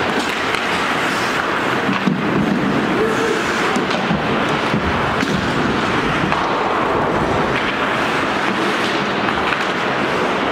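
Ice hockey play in an echoing indoor rink: skates scraping the ice and occasional stick clacks, blended into a dense, steady wash of noise.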